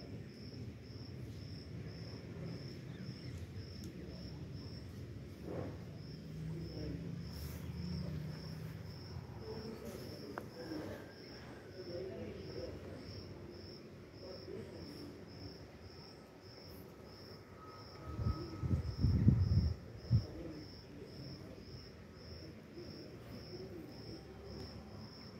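A cricket chirping steadily, a short high chirp about one and a half times a second. About three-quarters of the way through, a couple of seconds of loud low rumbling thumps cover it.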